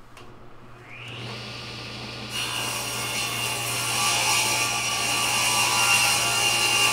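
Table saw ripping a rough-sawn board along the fence: the blade spins with a steady motor hum, bites into the wood about two seconds in, and the cutting noise grows louder as the board feeds through.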